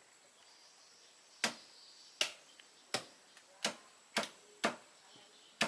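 Seven sharp, short knocks at uneven intervals of roughly half a second to a second, starting about one and a half seconds in.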